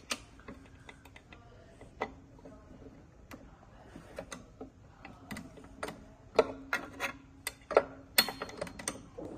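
Irregular metallic clicks and clinks of hand tools working the screws of a ball machine's housing, sparse at first and coming thicker and louder in the second half.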